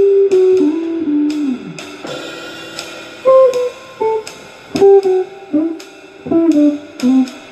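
Electric guitar, a Telecaster-style solid body, playing single-note lead lines: picked notes with string bends, and one note sliding down about a second and a half in.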